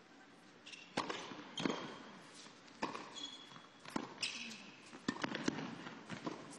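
Tennis rally on an indoor hard court: sharp racket-on-ball strikes and ball bounces come roughly once a second, back and forth between the two players. A few short high squeaks fall between the shots.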